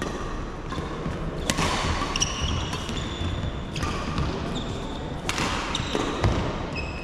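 Badminton rally: rackets striking the shuttlecock with a few sharp cracks, the strongest about a second and a half in and again past five seconds, among frequent short squeaks of court shoes on a wooden floor.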